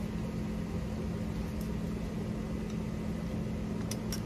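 A steady low mechanical hum, with a few light clicks near the end as a hand lever tube bender is worked on copper refrigerant tubing.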